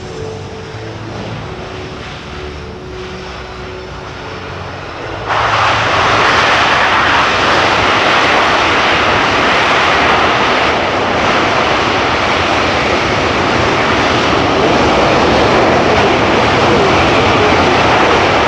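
C-17 Globemaster III's four Pratt & Whitney F117 turbofan engines during a short-field landing. Moderate jet engine noise with a faint steady whine jumps abruptly to a much louder, steady rush about five seconds in and stays loud.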